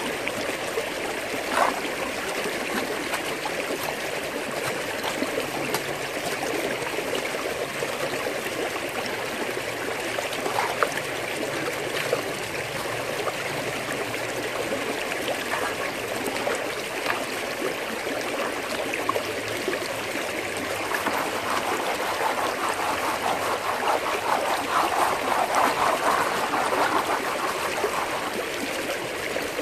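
Creek water rushing steadily through an aluminium gold-panning sluice box, with a few sharp ticks. The rush swells louder about two-thirds of the way through, then eases near the end.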